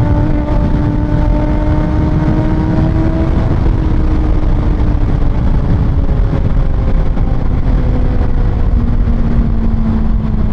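Kawasaki ZX-6R's 636cc inline-four with an Austin Racing exhaust running on the road, its note rising gently over the first few seconds, then settling back lower and easing off near the end. Heavy wind rumble on the microphone runs under it.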